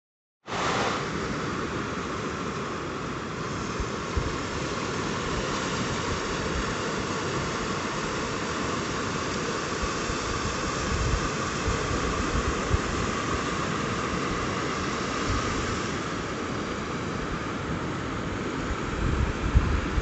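Caspian Sea surf washing up a sandy beach: a steady rushing wash of small waves, starting abruptly after a moment of silence, with low gusts of wind on the microphone, strongest near the end.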